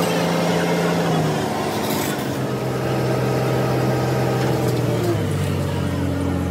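Truck-mounted crane's diesel engine running steadily, its speed dropping in two steps, about a second in and again about five seconds in.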